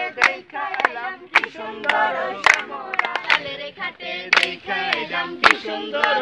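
A group of young men and women singing together while clapping their hands in a steady rhythm, about two claps a second.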